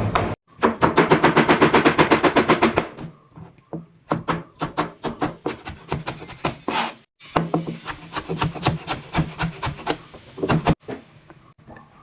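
Knife chopping on a wooden cutting board: a fast, even run of chops for the first few seconds, then slower, irregular chops.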